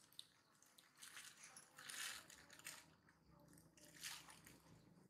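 Near silence, with two faint, short rushes of noise, about two seconds in and again about four seconds in.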